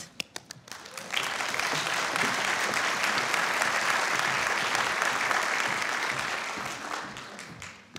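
Audience applauding: a few scattered claps at first, swelling about a second in to steady applause, which fades out over the last couple of seconds.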